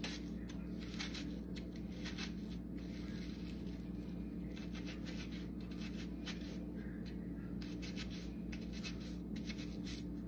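A small knife shaving thin slivers off a whole onion held in the hand: many short scraping cuts at an uneven pace, over a steady low hum.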